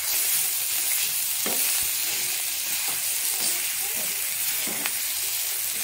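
Spiced mashed-potato filling sizzling in oil in a nonstick frying pan, with a steady hiss. A steel spatula scrapes and presses through it a few times as it is stirred and fried.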